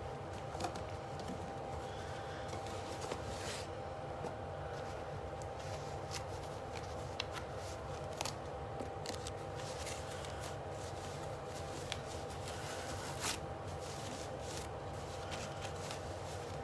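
Hands rustling and handling packaging and a cloth wrapping, with scattered small clicks and crinkles, over a steady background hum.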